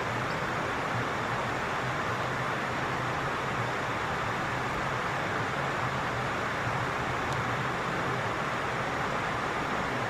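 Steady, even rushing background noise with no distinct events.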